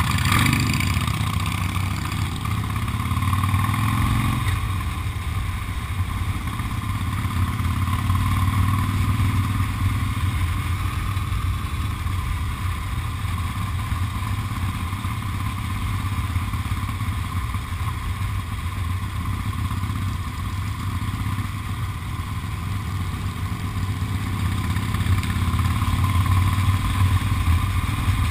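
Motorcycle engine pulling away, its note rising over the first few seconds, then running steadily as the bike rides along.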